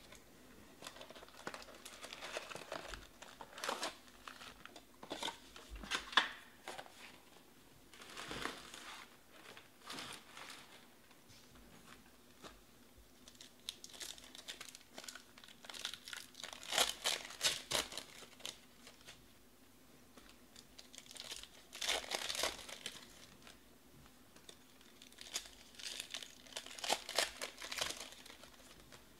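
Shiny plastic wrappers of 2020 Panini Select Baseball card packs being torn open and crinkled by hand, in scattered bursts of crackling a few seconds apart.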